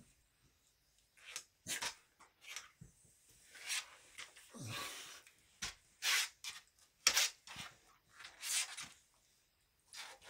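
A boxer and a bully dog play-wrestling on a hardwood floor: about a dozen short, irregular rubbing and scuffing sounds of bodies, fur and paws, with a longer one about halfway through.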